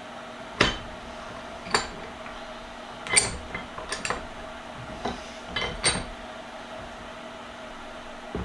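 Steel vise parts clinking and knocking together as the vise is handled during reassembly: about seven sharp, ringing metallic clinks at irregular intervals, the last a little before six seconds in.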